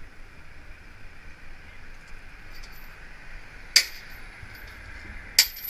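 Steady wind and road noise on a moving helmet camera, then two sharp metallic clinks about a second and a half apart near the end: a hammer striking a chisel at a wheel clamp's chain.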